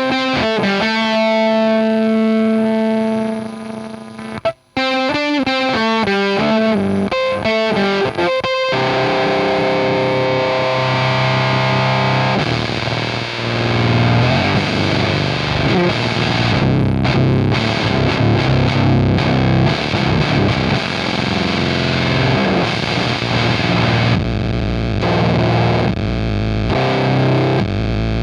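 Electric guitar, a Fender Jaguar with a bridge humbucker, through a Soda Meiser-style vintage fuzz pedal at medium gain into a Hiwatt amp and 4x12 cab: heavily distorted chords ring out, with a short break about four seconds in, then become a thick, dense fuzz wash from about ten seconds on. Near the end the pedal's feedback footswitch is engaged for its noise feedback loop.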